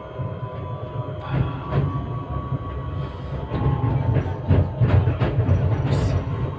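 Tram running on its rails: a steady low rumble with a run of sharp clacks from the wheels over the track, thickest from about three and a half to six seconds in.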